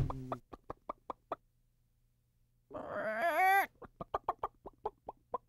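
A chicken clucking in short quick clucks, about five a second, then one long wavering squawk about three seconds in, followed by another run of clucks.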